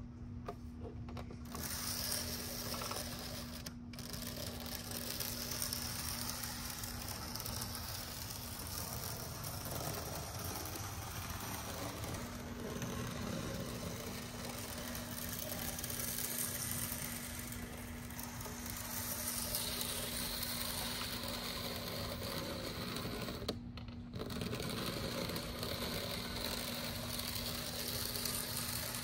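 Rokuhan Z-scale model steam locomotive and tender running laps of the track: a steady whir and fine rattle from its tiny motor, gears and wheels on the rails.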